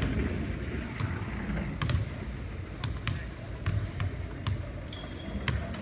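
Basketballs bouncing on a hardwood gym floor, irregular thuds and sharp slaps about once a second, with a brief high squeak near the end.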